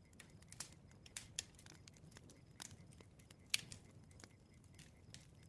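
Campfire crackling faintly: irregular sharp pops and snaps, one louder snap about three and a half seconds in.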